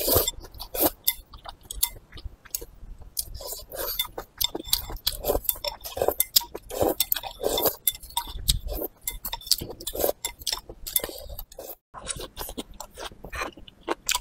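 Close-miked eating sounds: noodles slurped and chewed, with many small clicks of chopsticks against a ceramic bowl.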